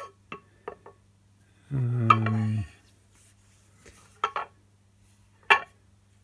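Cast iron lathe saddle castings handled and set against each other on a worktop: a few light clicks, then sharp metal clanks, two close together and a louder single one near the end. A short hummed 'mm' from a voice comes about two seconds in.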